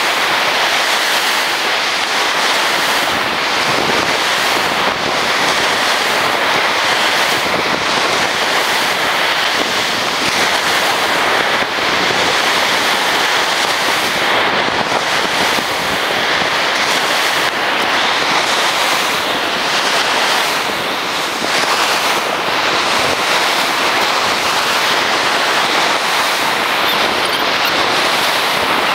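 Sea surf breaking on a sandy beach: a dense, steady rushing hiss with wind on the microphone. The audio is played at six times speed, so the wave surges come about every second or so.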